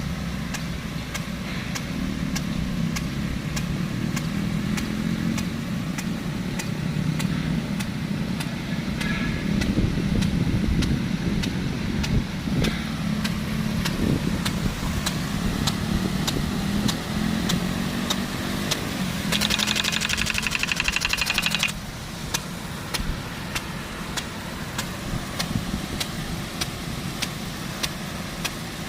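Sime Hidra big gun sprinkler running under a low, steady drone, with evenly repeated sharp clicks, and a louder spray hiss for about two seconds a little past the middle.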